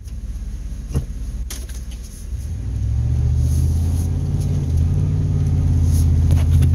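Pickup truck engine heard from inside the cab, a low rumble that swells about two seconds in as the truck pulls away and then holds steady. Two sharp knocks come in the first second and a half.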